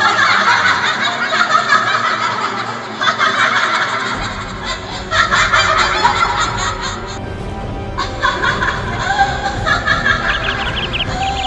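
Laughing sound effect: repeated runs of quick snickering laughs, with music underneath.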